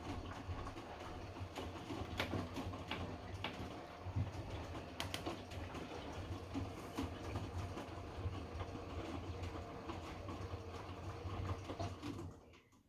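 Hotpoint washing machine on a Cotton 90° wash in its heating phase, the drum tumbling the wet laundry: a steady low hum with sloshing and irregular clicks and knocks. It cuts off suddenly near the end.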